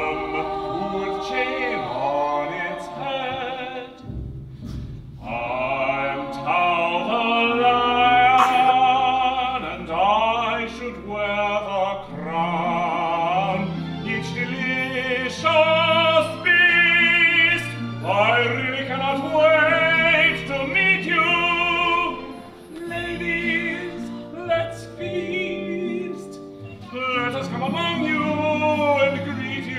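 Opera singing: voices with wavering vibrato sung over instruments holding steady low notes.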